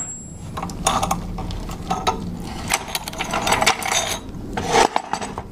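Irregular clicks, scrapes and rattles of steel being handled: cut pieces of heavy-wall steel pipe and the cold saw's metal vise knocking and sliding against each other.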